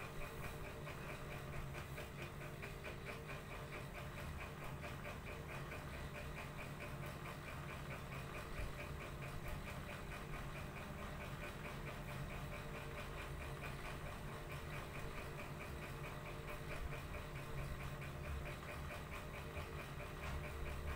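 A machine running steadily, with a low hum and a fast, even ticking of about five ticks a second.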